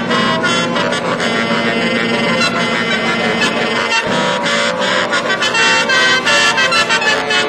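A bank of 42 tuned truck horns mounted on a 1935 Citroën truck playing a fast melody, with quick runs of changing notes and horn chords.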